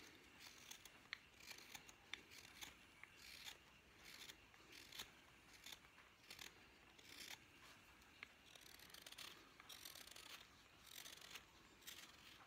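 Faint, short slicing strokes of a carving knife paring thin shavings from the bowl of a wooden spoon, about two a second and unevenly spaced.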